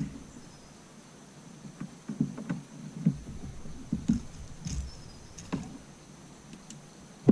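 Irregular knocks and thumps on the hull of an Old Town 119 canoe, about a dozen over a few seconds starting about two seconds in, while a bowfin tangled in fishing line is worked free and unhooked.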